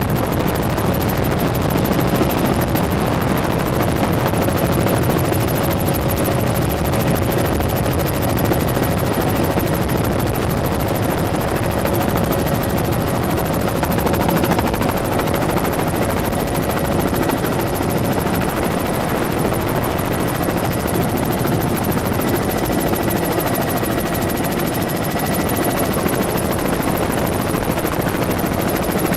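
Tour helicopter's engine and rotors running steadily in flight, a constant loud drone with a faint steady whine.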